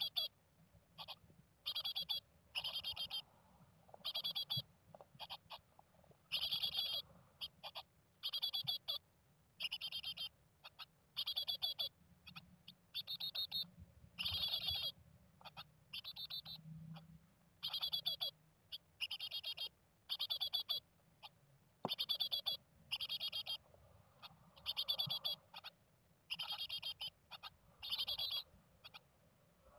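Japanese tit calling: short bursts of fast, trilled high notes, repeated about once a second.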